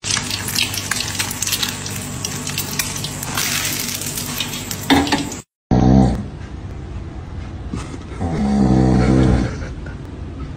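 An egg sizzling and crackling in hot oil in a frying pan. After a short break about five and a half seconds in, a person makes low, guttural, pulsing vocal sounds in two bouts.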